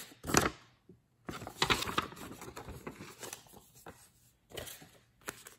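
Paper receipt rustling and crinkling as it is handled, in uneven bursts with short pauses between.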